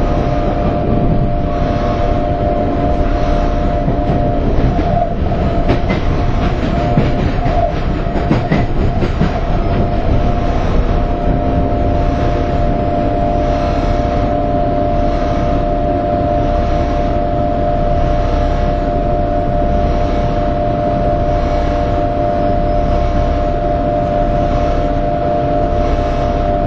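London Underground 1992 Stock Central Line train running along the track, heard from inside the car: steady rumble of wheels on rail with a constant high whine and a faint regular beat about once a second.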